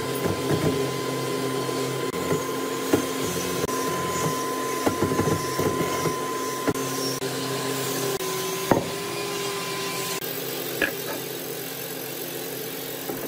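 A workshop machine's motor running steadily with a steady whine, broken by a few sharp knocks or clicks, the loudest about nine seconds in.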